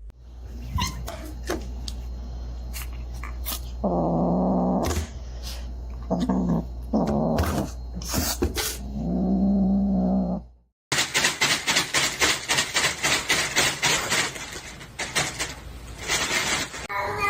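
A pet animal making four drawn-out, low-pitched calls over a steady low hum. After a cut, a fast run of short scratchy noises follows.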